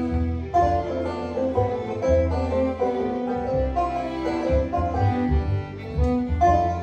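Acoustic string band playing an instrumental tune: two banjos picking, a fiddle bowing and an upright double bass plucking a steady bass line.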